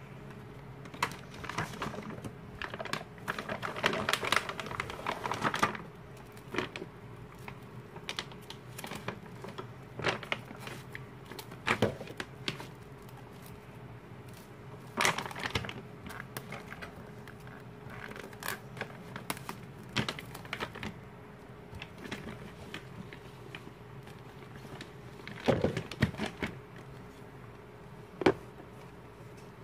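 Hands handling a photobook and its clear plastic bag: plastic rustling and crinkling with irregular taps and clicks, busiest in the first few seconds, then a scattered click every few seconds.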